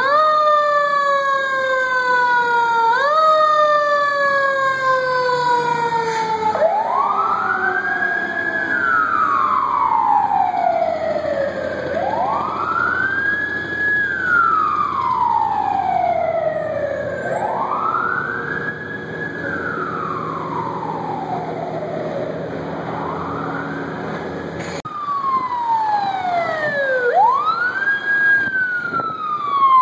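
Fire engine sirens. First a siren sweeps up quickly and slowly falls, pushed up again about three seconds in. After a cut, a wail rises and falls steadily about every four and a half seconds.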